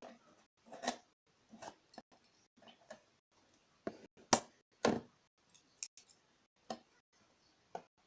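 Scissors cutting through a juice carton in short, irregular snips, with two louder snips about halfway through.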